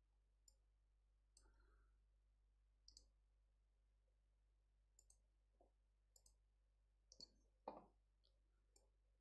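Faint, scattered clicks of a computer mouse over near silence, about ten in all, with one a little louder near the end.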